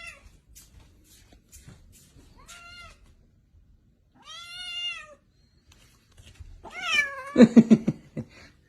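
Domestic cat meowing: drawn-out, arching meows a second or two apart, then a quick run of short, louder calls near the end.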